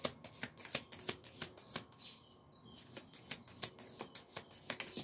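A deck of cards shuffled overhand by hand: quick runs of light card flicks and slaps, easing off for about a second around two seconds in, then picking up again.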